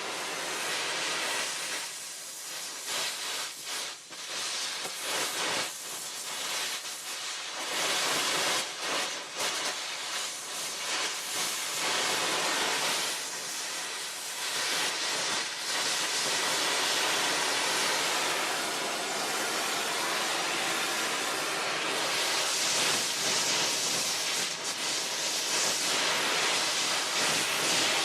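A long rushing hiss, of the kind escaping steam makes, that swells and eases and grows fullest and brightest in the last third.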